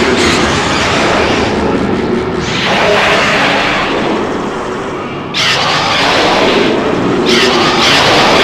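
Grand King Ghidorah film sound effects: a run of loud, harsh, blast-like sounds, with fresh blasts starting sharply about five and seven seconds in.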